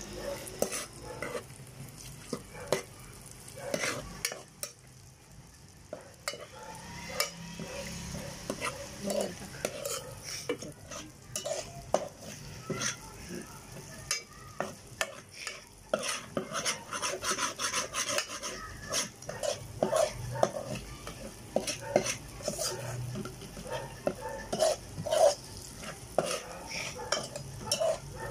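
A paste frying and sizzling in hot oil in a cooking pot, with a spoon repeatedly scraping and knocking against the pot as it is stirred. The sizzle swells for a few seconds around the middle.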